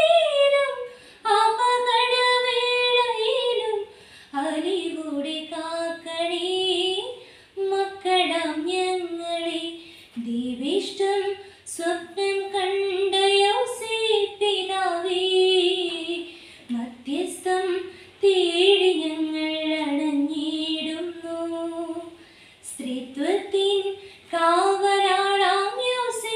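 A young woman singing a Malayalam hymn solo and unaccompanied, in phrases of held notes with short breaths between them.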